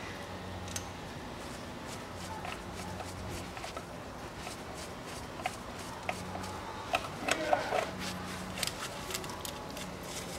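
Scattered light clicks and taps of parts and fasteners being handled and fitted by gloved hands during reassembly under a car's engine, with a faint low hum that comes and goes.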